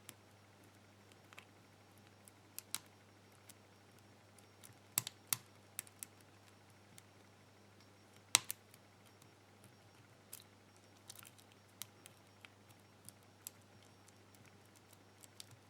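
Small metallic clicks and ticks of a hook pick working the wafers of a wafer-tumbler bike lock held under tension, scattered and irregular, with one louder click about eight seconds in. A faint steady hum runs underneath.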